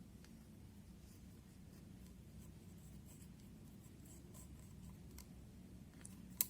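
Faint, intermittent scratching of a tool scraping eyeshadow powder from its pan, with one sharp click just before the end.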